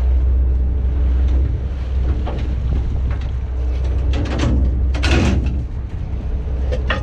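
Fishing boat's engine running with a steady low hum, with a louder rushing burst of noise about four to five seconds in.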